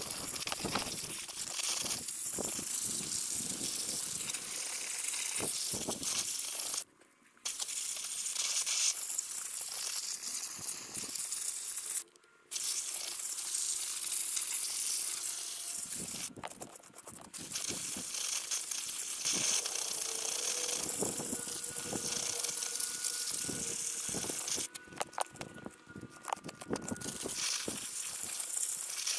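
Sped-up shovel digging in soil: a fast, dense run of scrapes and knocks, cutting out suddenly a few times.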